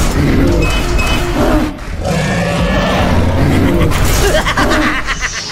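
Dinosaur roar and growl sound effects, rough and loud, with a short break a little under two seconds in.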